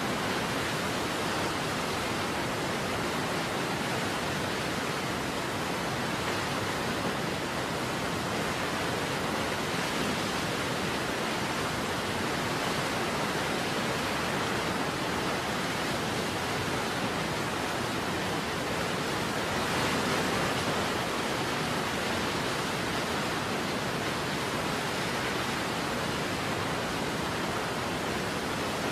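Falling water of a large waterfall rushing steadily, an even, unbroken noise without breaks.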